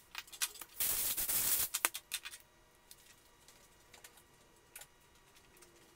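An aerosol cleaner can sprayed in one hissing burst of about a second while a clutch slave cylinder is being cleaned, with sharp clicks and light clatter of small metal parts on the steel bench around it.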